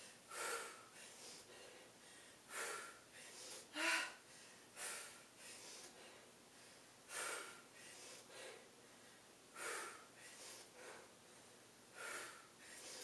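A woman breathing hard from exertion during crunches: short, sharp breaths out, about one every one to two seconds, one carrying a little voice about four seconds in.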